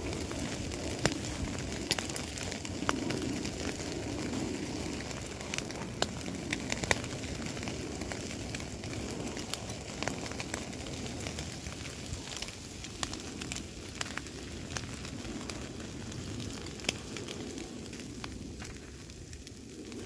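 Wood fire crackling: irregular sharp pops and snaps over a steady low rush of burning.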